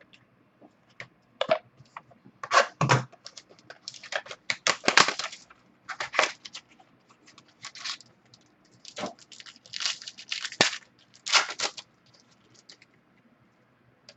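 Plastic or foil trading-card packaging crinkling and tearing in the hands, in a run of irregular sharp rustles through the middle, with quieter handling of the cards at the start and end.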